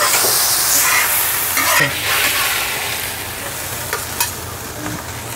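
Leafy greens sizzling in a hot wok while a metal spatula stirs and scoops them out, with a few short scrapes and clicks of metal on the pan. The sizzle slowly eases off toward the end.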